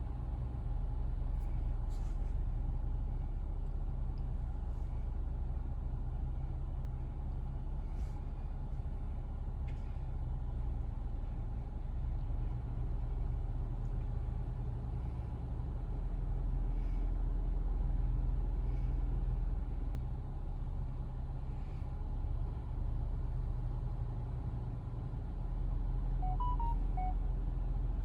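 Steady low rumble of a car's engine and road noise heard from inside the moving car. Near the end come a few short, soft electronic tones.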